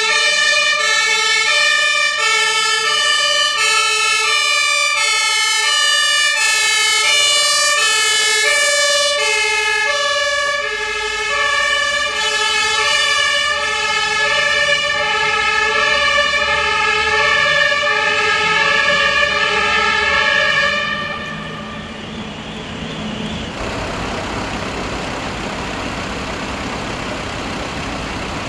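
German fire engine two-tone siren (Martinshorn) sounding, switching back and forth between two pitches. It cuts off about 21 seconds in, leaving the steady running of the vehicles' engines.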